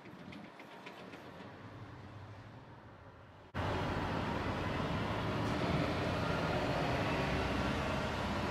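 A few faint high chirps from Eurasian tree sparrows over a low background rumble. About three and a half seconds in, a loud, steady rushing noise suddenly cuts in and drowns everything else.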